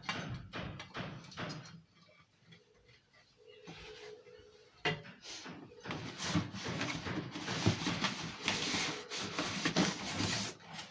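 Handling noise from a cookware set being unpacked: a few light knocks, a quiet lull with a faint steady hum, a sharp click about five seconds in, then several seconds of continuous rustling.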